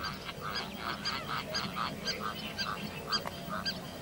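A chorus of short animal calls repeating about four times a second over a faint steady hiss.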